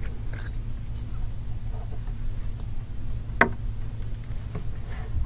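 Small screwdriver working tiny screws out of a phone's metal LCD shield: one sharp click about three and a half seconds in and a few faint ticks, over a steady low hum.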